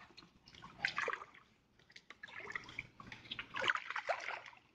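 Shallow water sloshing and splashing in three short, irregular bursts, from wading and reaching through water among floating reed stalks.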